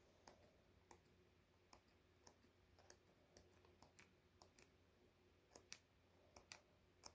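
Sheets of a patterned paper pad flipped one at a time under the thumb, each page giving a short sharp click as it snaps free and falls, about two a second, unevenly spaced, with a few louder clicks near the end.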